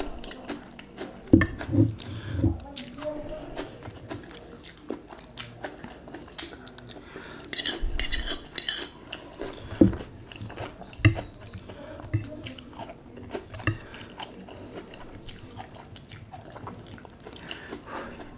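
Eating sounds: noodles being slurped and chewed, with a fork clinking against a glass dish and a ceramic bowl in scattered sharp clicks.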